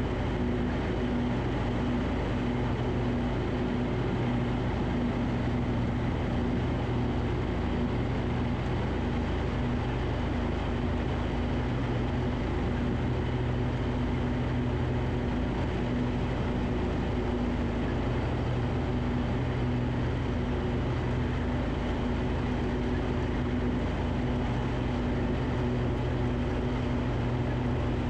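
Riding lawn tractor engine running steadily at constant speed with an even hum, as while mowing.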